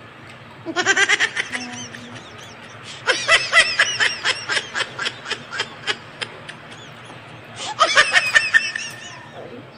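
High-pitched giggling laughter in three bouts: a short burst about a second in, a longer run of rapid giggles from about three to seven seconds, and another burst near eight seconds.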